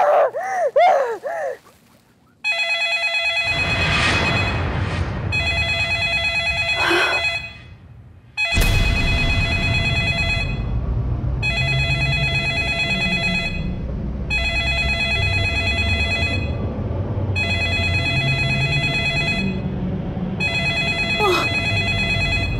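Black corded desk telephone ringing over and over, about nine electronic rings each lasting about two seconds with short gaps, starting a couple of seconds in after a warbling musical tone fades. A low rumbling drone and a few whooshes of horror-score sound effects run beneath the rings.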